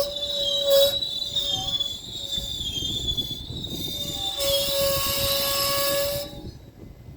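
GO Transit commuter train at the station with a steady high-pitched metallic squeal from the wheels and a lower sustained tone, in two stretches. Both stop suddenly a little after six seconds in.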